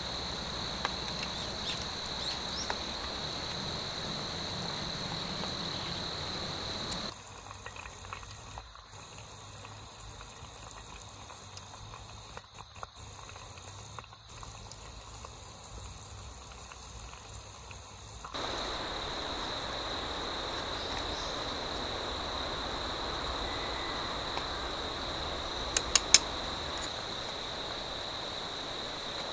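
Insects chirping in a steady high trill. Through a quieter middle stretch, oil bubbles and sizzles as food deep-fries in an empty steel food can over charcoal. Near the end come three sharp metal clicks, a skewer knocking against the can.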